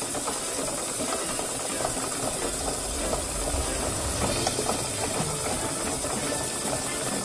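Wimshurst-type electrophore machine with its discs spinning, giving a steady rattling, ticking run from its drive and disc mechanism. No spark crack stands out: with copper wire in place of the discharge balls, no spark jumps the gap.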